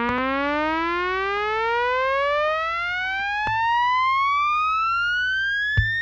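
One long synthesizer tone gliding slowly and steadily upward in pitch, part of the soundtrack music. A few sharp drum-like hits come in near the end.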